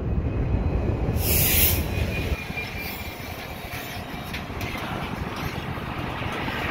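A diesel-hauled freight train of hopper wagons rolling past close by, with a brief hiss and wheel squeal about a second in. A heavy low rumble drops away after about two seconds, leaving the steadier rolling noise of the wagons.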